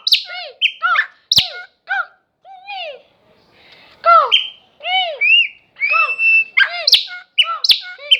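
Pássaro-preto (chopi blackbird) singing loudly and close up: a run of rich arched whistles and chirps, repeated over and over with short gaps, and a sharp click about a second and a half in.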